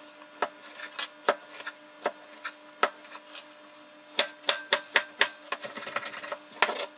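Chef's knife dicing a tomato on a plastic cutting board. The blade knocks sharply on the board, first in a few spaced strokes, then in a quicker run of chops from about four seconds in.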